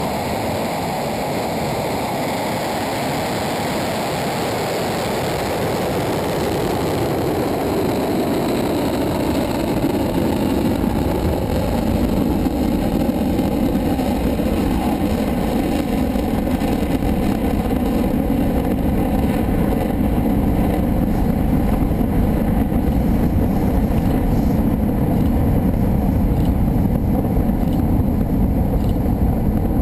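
Delta IV Medium+ (4,2) rocket at liftoff: a steady, loud rumbling roar from its RS-68 main engine and two strap-on solid rocket boosters, building louder over the first ten seconds or so.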